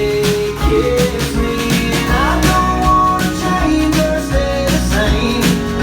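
Country-rock band music with a steady drum beat, bass and guitar.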